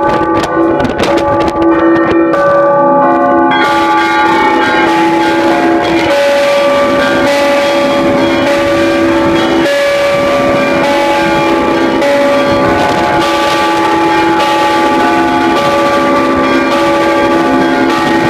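Russian Orthodox cathedral bells rung by hand: several bells struck rapidly in an overlapping peal, their tones ringing on and layering over one another, loud.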